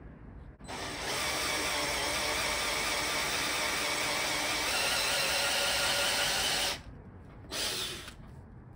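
Cordless drill with a hole saw running under load, cutting a large hole through the centre of a car's underbody panel. It runs steadily for about six seconds, stops suddenly, and gives one short burst about a second later.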